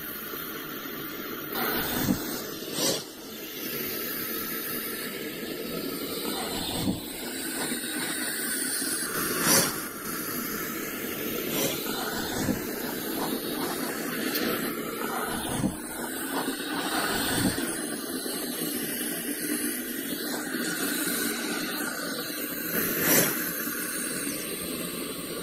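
Anaconda hissing: a continuous breathy hiss with several brief, louder surges.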